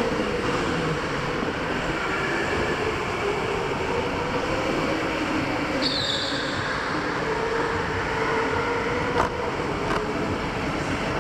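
Electric go-kart motor whining with its pitch drifting slowly up and down as the kart speeds up and slows, over steady wind and tyre noise on a helmet-mounted camera. A brief high squeak about six seconds in.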